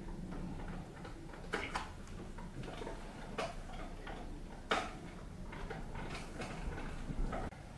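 Scattered light clicks and taps, about six of them at irregular intervals, over a faint steady low hum.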